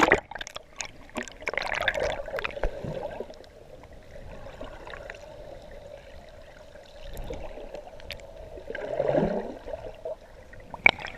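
Sea water sloshing and gurgling, with a steady hum underneath and a louder swirl of water about nine seconds in.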